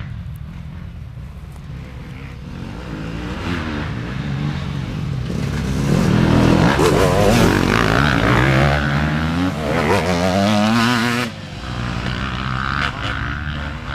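Off-road dirt bike engine revving up and down as it rides past, growing louder to a peak in the middle, then dropping away sharply about three seconds before the end.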